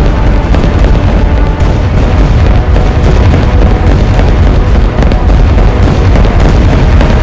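Very loud, steady low rumble of a plane's engines as it flies around, with a few faint steady tones over it.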